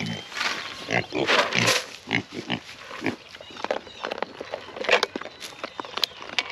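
Young Kunekune pigs vocalising loudly in a run of calls over the first two seconds, then many short clicks and crunches as they eat feed scattered on the ground.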